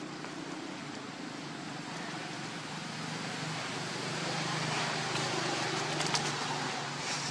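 A motor vehicle's engine humming steadily in the background, growing slightly louder about halfway through, with a few faint clicks near the end.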